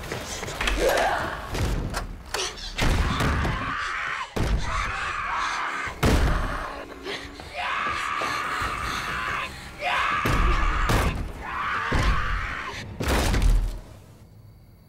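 About seven heavy slams and thuds, like something pounding against a door, one to two seconds apart, with harsh screeching between them. The pounding stops shortly before the end.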